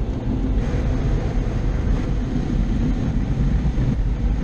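Automatic car wash machinery running, a loud steady roar heard from inside the car's cabin.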